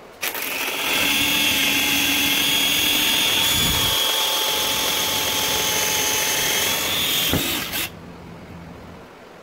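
Cordless drill running steadily with a whine, drilling out a built-in well nut in a plastic kayak hull. It runs for about seven seconds and then cuts off.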